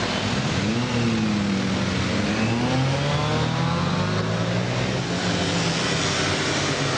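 Busy road traffic: an even traffic hum with the engines of several vehicles pulling away, their pitch dipping and rising, one climbing steadily from about two and a half seconds in.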